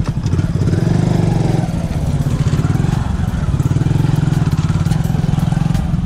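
Motorcycle engine running loud and close, heard from on the bike as it rides a rough dirt track, its revs rising and falling several times.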